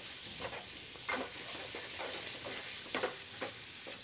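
Steel spoon scraping and clicking against a steel pan as it stirs a thick, sticky amla candy mixture, in irregular strokes with many sharp clicks.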